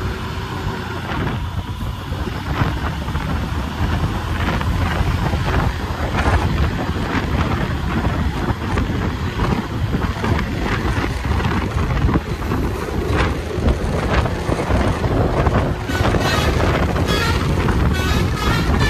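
Heavy vehicle engine running with a steady low rumble, wind buffeting the microphone, and occasional knocks and rattles.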